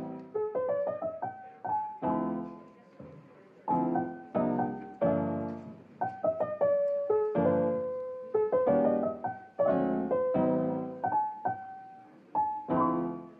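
Background piano music: single notes and chords struck one after another, each ringing and fading away.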